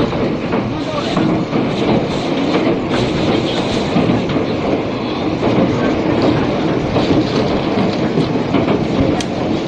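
Running noise heard from inside a 485 series electric limited express car, a steady rumble of the train under way with the wheels clicking now and then over rail joints. An old cassette recording with tape hiss, dull above the mid-treble.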